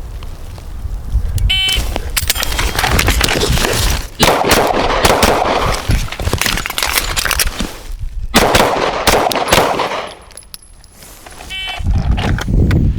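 An electronic shot timer beeps about a second and a half in, then a run of suppressed 5.56 rifle shots follows in quick strings for several seconds. A second timer beep comes near the end.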